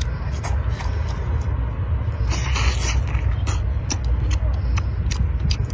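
Shellfish shells being cracked and pulled apart by hand and chewed close to the microphone: a run of short sharp cracks and clicks, busiest in the second half, over a steady low rumble.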